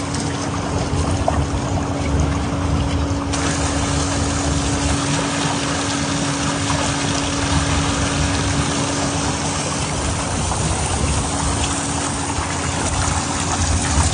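Water running steadily, with a steady low hum beneath it.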